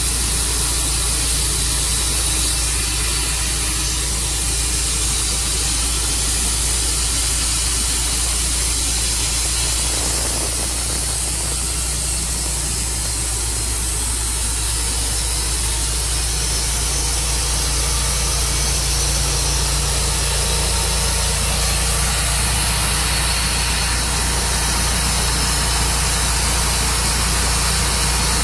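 Tru Cut sawmill's engine running steadily under a constant hiss, as the mill works through a walnut log.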